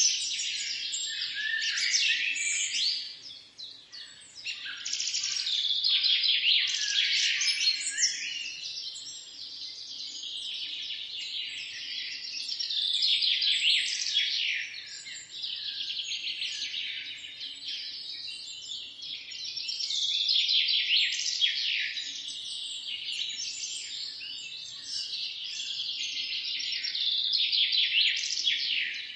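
A chorus of many small songbirds chirping and singing at once, in dense, overlapping high calls. The chorus swells and fades every several seconds, with a brief lull about three seconds in.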